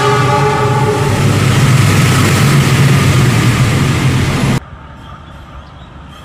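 Loud, steady rush and rumble of a freight train passing close alongside on the next track, heard from a train window, with a low hum under it. A steady tone dies away about a second in. The noise cuts off abruptly about four and a half seconds in, leaving a faint background.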